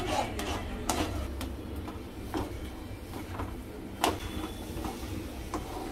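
A spatula scraping and knocking in a pan of cooking moong dal halwa as it is stirred, with one sharp knock about four seconds in, over a steady low hum.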